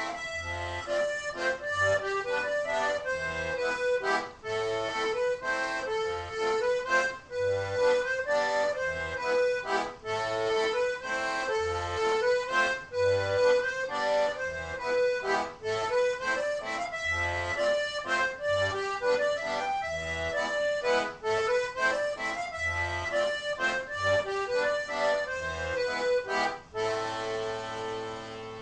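Diatonic button accordion playing a waltz tune, with bass notes on a steady beat under the melody. It closes on a held chord about two seconds before the end.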